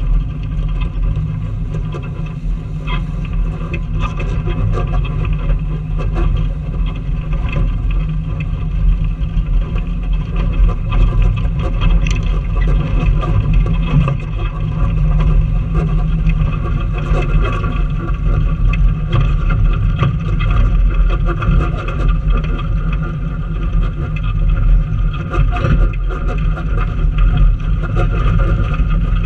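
Off-road vehicle's engine running at low speed with its tires crawling over loose rock, gravel crunching and clicking under the tread throughout, heard from outside beside the front wheel.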